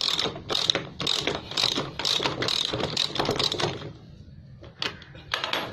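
Ratchet wrench clicking as its handle is swung back and forth about twice a second, loosening a nut. The run stops at about four seconds, and two short bursts of clicks follow near the end.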